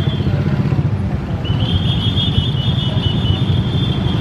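Railway wheels squealing against the rails on a tight curve as a fuel tank wagon is pushed through, a steady high screech that stops briefly and returns about a second and a half in. Under it runs the low rumble of the shunting CC 201 diesel-electric locomotive.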